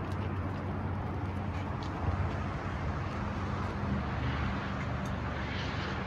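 Steady low motor-vehicle hum with road noise, with no distinct events.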